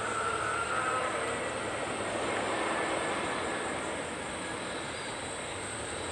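Boeing 737-300's CFM56-3 turbofan engines running steadily, a rushing hiss with a high whine that fades about a second in.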